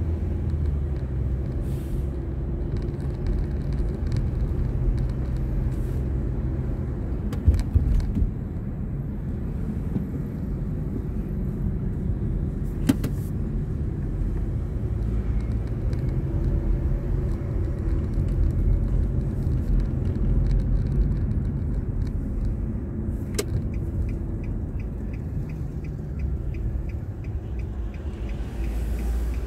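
A car's engine and tyre noise heard from inside the cabin while driving slowly: a steady low rumble, with a few sharp knocks in the first half and a light, even ticking in the last few seconds.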